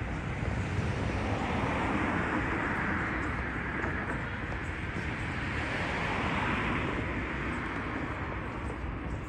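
Road traffic on a busy city road: a steady rush of tyre and engine noise that swells twice as vehicles pass close by.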